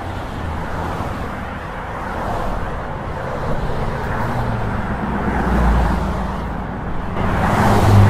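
Roadside traffic ambience: cars passing by at speed over a steady rush of wind and road noise, growing louder as a car passes about two-thirds of the way through and again near the end.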